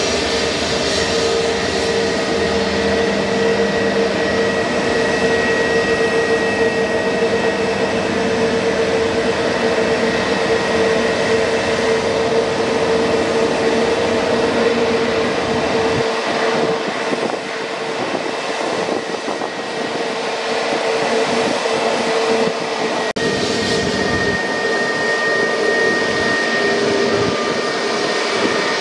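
Airbus A320neo's CFM LEAP-1A turbofan engines running with a steady whine over a broad rush of jet noise. The sound changes abruptly near the end as it switches to a second A320neo of the same type.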